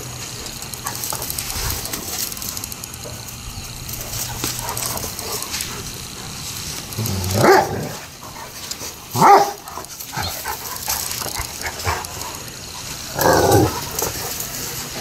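Dogs barking at play: three loud barks stand out, one about halfway through, another about two seconds later, and a longer one near the end.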